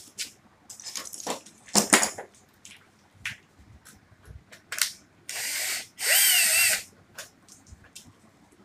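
Cordless drill driving in a screw that holds the cover of a fluorescent batten fitting, in two short runs, the second longer and louder, about five and six seconds in. Before them come clicks and knocks of the drill and fitting being handled.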